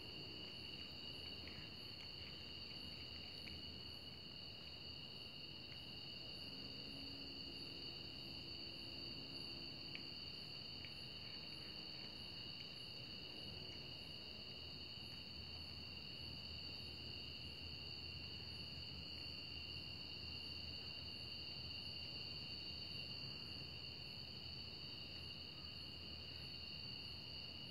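Faint steady high-pitched trilling of insects, with a fainter, higher pulsing chirp about twice a second.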